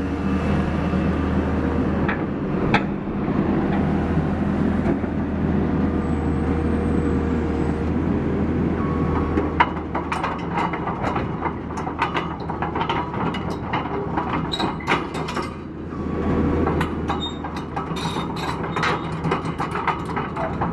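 Caterpillar 321C LCR excavator's diesel engine running steadily, joined from about ten seconds in by frequent sharp metallic clanks and knocks.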